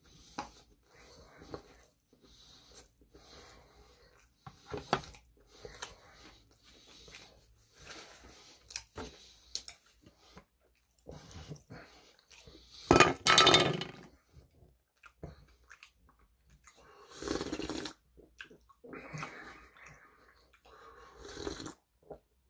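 Close mouth sounds of a person eating sushi: chewing and small wet clicks, with a louder, noisier sound about thirteen seconds in and a few shorter ones near the end.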